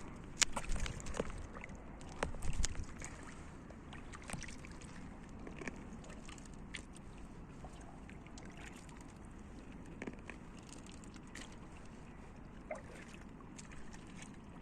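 Kayak paddling: water splashing and dripping off the paddle blade, with a couple of louder splashes in the first three seconds and scattered small drips and ticks after.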